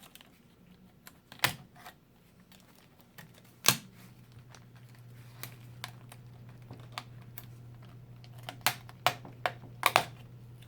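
Plastic laptop LCD bezel being pried loose with a plastic scribe: scattered sharp clicks and snaps as it comes away from the screen, with a quick cluster of louder ones near the end. A faint low steady hum starts about a third of the way in.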